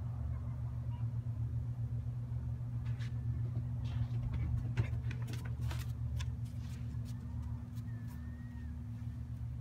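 A steady low mechanical hum, engine-like, with a scattering of sharp clicks and knocks around the middle.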